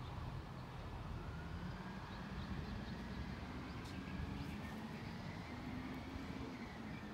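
Refuse truck's engine running down the street at a distance, a steady low drone. A faint higher whine slowly rises in pitch.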